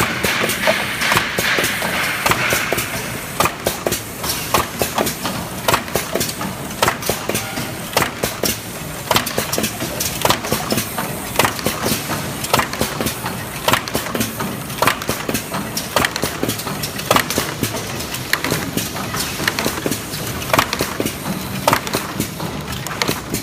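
Cough syrup bottle cartoning and film-wrapping machine running, with frequent sharp mechanical clacks and knocks over a constant machine noise. A hiss sits under it for the first few seconds.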